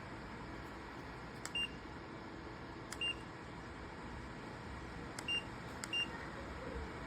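Electric ceramic fan heater beeping four times, short single-pitched beeps each led by a click, as buttons on it or its remote are pressed, with its fan running steadily underneath.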